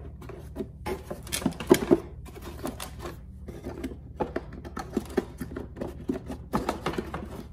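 Plastic air filter housing cover of a 2012 Volkswagen Passat being handled and pressed into place by hand: a scatter of small hard plastic clicks and knocks in several clusters as the cover is seated to clip in.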